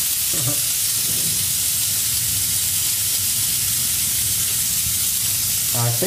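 Decent Espresso DE1XXL espresso machine's steam wand blowing a steady hiss of dry steam, set to its driest setting: 170 °C at the slowest water flow, 0.4 ml per second.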